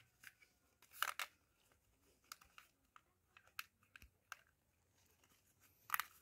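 Orange corrugated plastic conduit (3/4-inch hose, slit lengthwise) crackling and clicking as it is pressed by hand onto the edge of an electric meter base. The clicks are scattered, with louder crackles about a second in and near the end.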